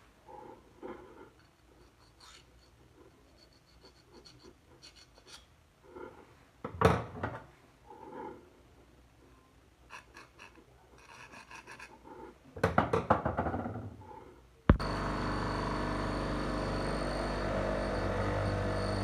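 Scattered knocks, clicks and scrapes of tools being handled, with a louder clatter about seven seconds in and a fast rattling run of strokes near the end; then an electric bench grinder suddenly starts running, a steady motor hum for the last four seconds.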